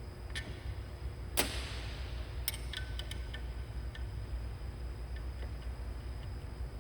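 Metal parts and tools being handled: a sharp click, a second click about a second later, then a few lighter clinks with a brief metallic ring, over a steady low hum.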